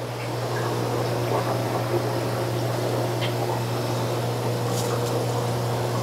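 Aquarium water running steadily over a low, steady pump hum, the water sound growing louder over the first second.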